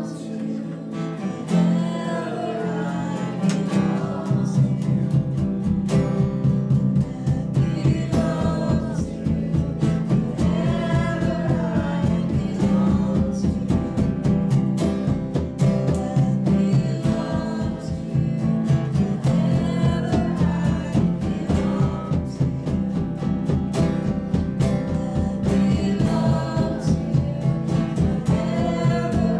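Live worship band playing: a female voice singing a melody over strummed acoustic guitar, electric guitar and a drum kit keeping a steady beat.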